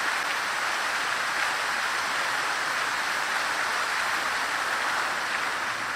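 Fountain water falling and splashing into its basin, a steady even rush.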